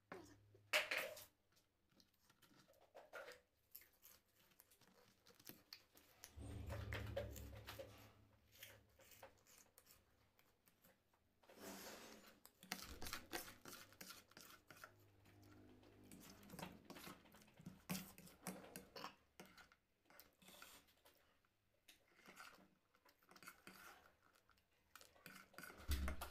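Faint eating sounds: chewing and crunching of snacks, with scattered clicks and rustles.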